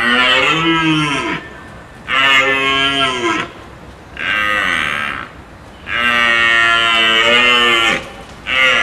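Cow mooing repeatedly: five loud calls, each rising then falling in pitch, the longest about two seconds, with short pauses between.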